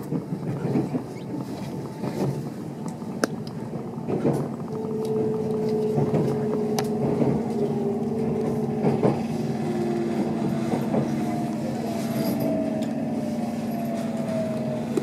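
Meitetsu 2000-series μSKY electric train slowing for a station: from about five seconds in, its traction-motor whine falls slowly in pitch over a steady hum, with scattered short clicks.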